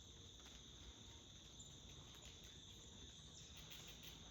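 Faint, steady chorus of insects, a continuous high-pitched trill.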